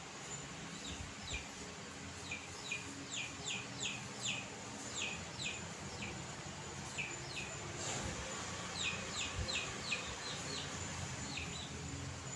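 A bird chirping: a series of short, high, quickly falling chirps in loose runs of a few at a time.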